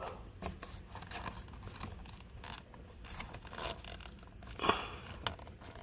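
Small plastic clicks and scraping as a white wiring connector in a car's steering wheel is worked loose by its push tab, with a few louder clicks near the end.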